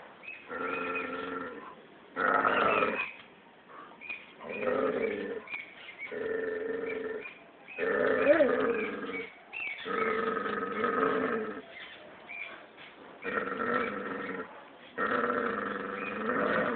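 Dog growling in repeated bouts of about a second each, roughly eight of them with short pauses between, one rising and falling in pitch near the middle. It is aggressive growling in a fight with a cat.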